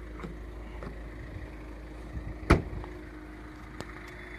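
Tata Nexon's tailgate shut with a single thump about halfway through, over a steady low background hum.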